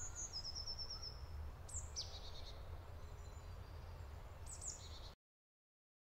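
Songbirds calling in a forest: a quick trill of repeated high notes near the start, then a few short high calls, over a steady low rumble. The sound cuts off abruptly about five seconds in.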